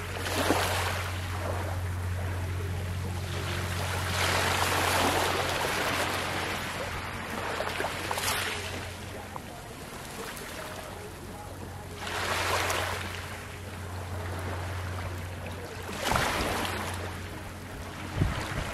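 Small ocean waves lapping and washing over a coral-rubble shore, one swell of wash about every four seconds, over a steady low hum that fades out near the end. A brief low thump comes just before the end.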